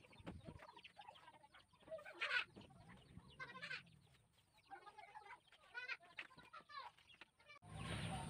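Faint, scattered clucking of chickens, a few short calls a second or so apart.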